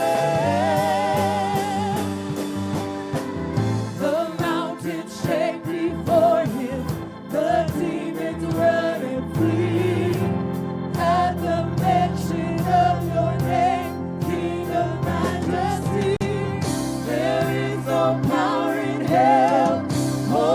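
Worship band and singers performing a gospel worship song: a wavering sung melody over sustained keyboard-like chords and bass.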